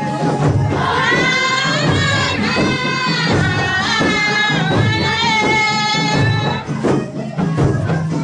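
Dance music: singing over a dense, steady percussion beat. A high voice holds long, drawn-out notes from about a second in until about seven seconds in.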